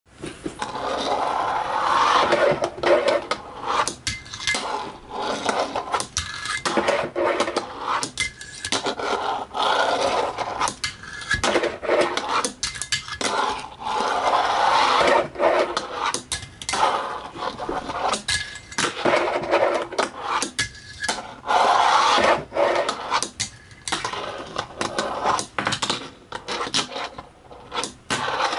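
Fingerboard wheels rolling and scraping across a wooden desk top in runs of a second or two, broken by many sharp clacks as the little deck pops, flips and lands on the wood.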